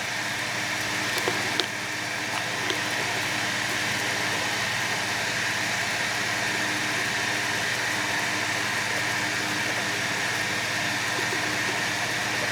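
Steady mechanical hum with a low drone and a hiss, and a few light clicks in the first three seconds as the metal bolt parts are handled.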